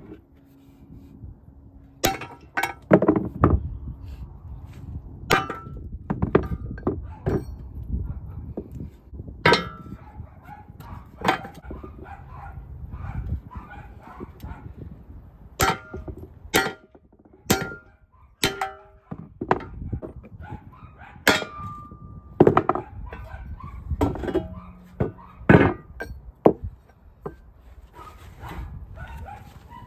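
Hammer blows on a steel socket, driving the old rubber bushings out of a 1997 Dodge Ram 3500 front lower control arm. The metal clangs come irregularly, a second or so apart and sometimes in quick pairs, and some ring briefly.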